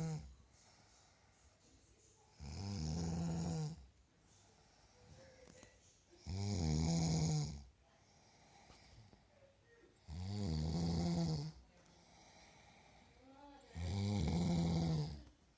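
A woman snoring in her sleep: a loud snore about every four seconds, each lasting over a second, with quiet gaps between.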